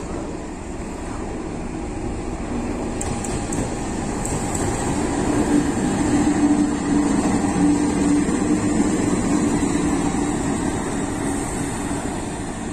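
CC 206 diesel-electric locomotive running light past at close range: a steady engine drone and rail rumble that grows louder about halfway through, then eases off.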